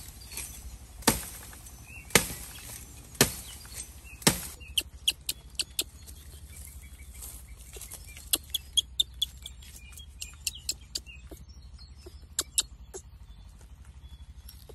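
Bamboo being chopped: five hard strokes about a second apart, each with a short ring, then lighter, quicker taps and clicks in small clusters.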